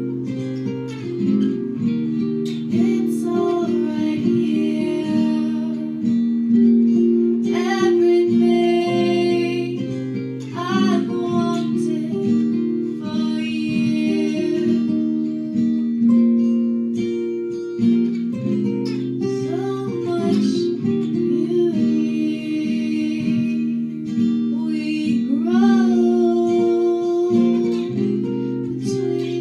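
A song: steady strummed guitar chords with a voice singing into a microphone in phrases that come and go.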